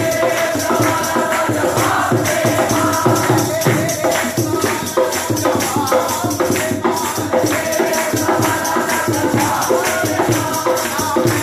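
A man singing a devotional bhent to the Goddess, with a steady, rhythmic jingling percussion accompaniment.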